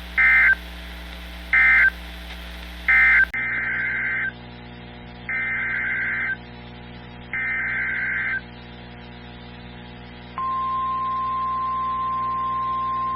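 Emergency Alert System SAME data tones. First come three short end-of-message bursts of warbling digital screech, then three longer header bursts. About 10 seconds in, the steady single-pitch NOAA Weather Radio 1050 Hz warning alarm tone starts and holds.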